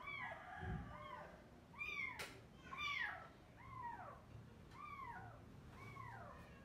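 Newborn kitten mewing over and over, a string of short high mews at about one a second, each rising and then falling in pitch.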